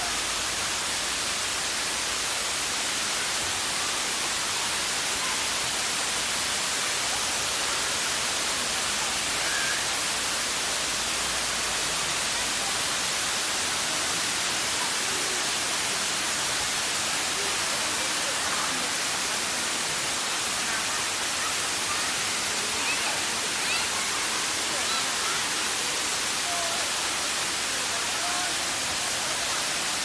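Waterfall cascading down tiered limestone rock: a steady rushing hiss of falling water, with faint distant voices now and then.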